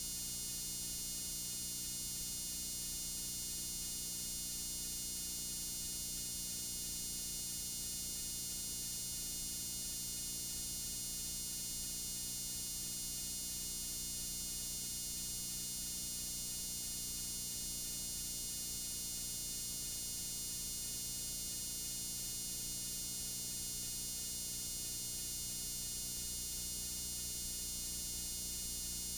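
Steady hiss and hum of a blank stretch of videotape playing back static, unchanging throughout, with the hiss strongest in the highs.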